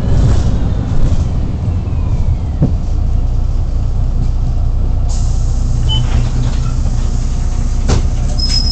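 Bus engine and road noise heard from inside the passenger cabin: a steady low rumble with scattered rattles and clicks, and a brief high squeak near the end.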